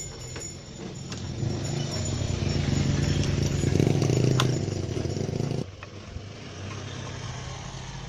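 A vehicle engine running steadily, growing louder to a peak about four seconds in and then dropping off abruptly a little past halfway, with a few light clicks of a screwdriver turning in a screw.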